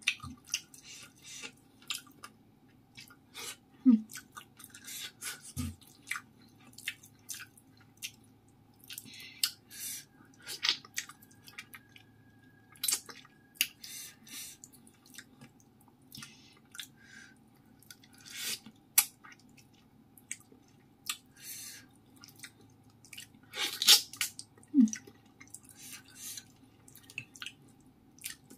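Close-up eating sounds: wet chewing, lip smacks and sharp little mouth clicks, many times over, as soft steamed pomfret is picked from the bones by hand and eaten.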